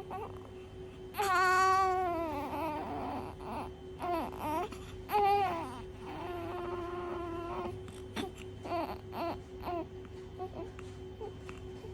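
Newborn baby, one day old, crying in short wails: a loud cry about a second in that falls in pitch, a few shorter cries, a longer steadier cry near the middle, then several brief whimpers.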